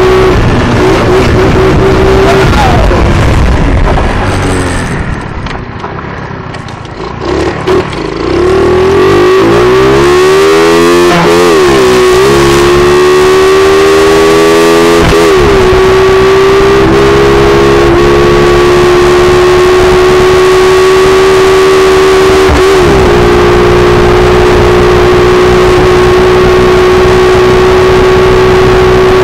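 Small dirt bike engine pulling under the rider. It eases off a few seconds in, revs up again with short breaks at each gear change, then holds a steady high-revving drone.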